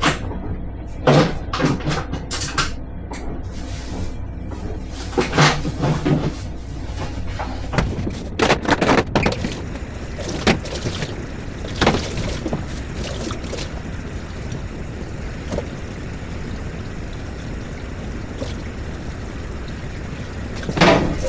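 Knocks and clatter of kitchen items being handled at a counter and sink, frequent in the first half and sparser later, over a steady low hum.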